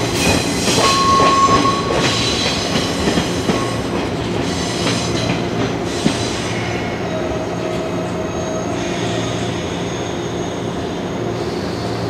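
A 185 series electric multiple unit rolling slowly through depot tracks. In the first few seconds its wheels clack over rail joints and points, with a brief squeal about a second in. It then settles into a steadier running hum, with one more sharp clack about halfway through.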